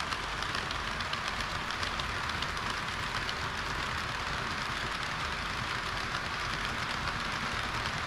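HO-gauge model trains rolling past close by, a string of green tank wagons and a red railcar set: a steady rushing rattle of small metal wheels on sectional track, dotted with many quick little clicks from the rail joints.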